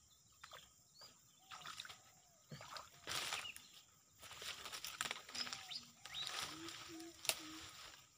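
Bursts of rustling and handling noise as a person moves through wet grass and works a fishing set-line, the loudest about three seconds in and again over the last three seconds. Short repeated chirping calls sound throughout.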